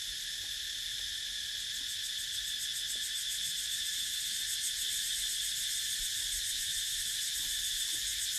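Steady chorus of insects chirring in woodland. A high, rapidly pulsing buzz grows a little louder from about two seconds in.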